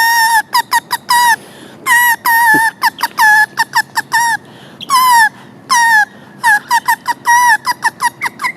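Blade of grass stretched between the thumbs and blown as a reed whistle, giving a loud run of reedy squealing notes. Several notes are held for about half a second, each bending down at its end, mixed with bursts of short, quick toots.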